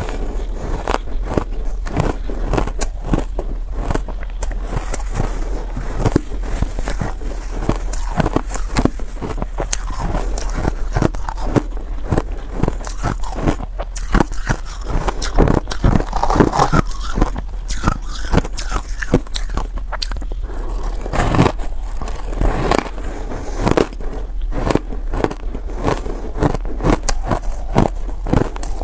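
Reshaped ice coated in buckwheat powder being bitten and chewed: a dense, continuous run of crisp crunches and crackles, with a steady low hum underneath.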